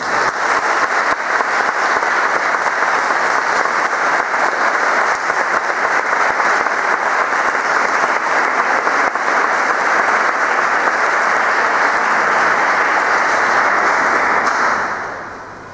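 Audience applauding: dense steady hand-clapping that fades away near the end.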